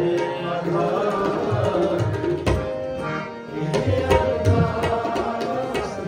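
Tabla and harmonium playing an instrumental passage of Sikh kirtan: a steady run of tabla strokes over held harmonium chords. There is a heavy low drum stroke about two and a half seconds in, and the playing thins briefly just after it before picking up again.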